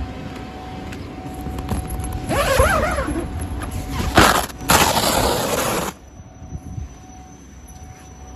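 Nylon fabric of an inflated tent rubbing and scraping against the microphone, with squeaky rubbing about two seconds in and a louder scraping hiss from about four seconds in that stops sharply near six seconds. A steady low rumble runs underneath.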